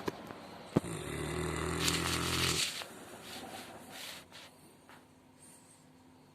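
St Bernard dog snoring in deep sleep: one long, low, rasping snore about a second in, lasting under two seconds, followed by quieter breathing.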